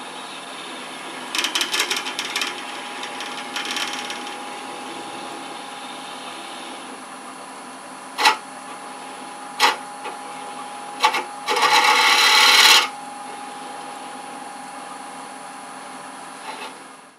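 Wood lathe running with a steady hum while a hand-held tool bores a starter hole into the centre of the spinning wooden box blank: scraping cutting noise in short bursts, a few sharp clicks, then a loud, harsh cut lasting about a second. The lathe's hum falls away right at the end.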